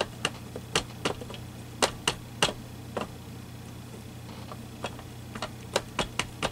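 Irregular light taps and clicks of a small cube ink pad dabbed against a clear stamp on a stamping tool's acrylic plate, about a dozen in all, over a low steady hum.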